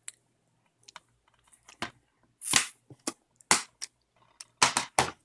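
Plastic DVD case being handled, giving a run of sharp clicks and snaps, the loudest ones in the second half.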